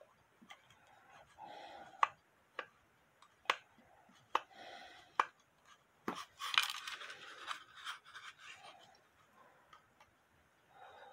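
Small screwdriver turning screws out of a wooden clock case: short scraping and rasping turns with sharp clicks, busiest about six seconds in.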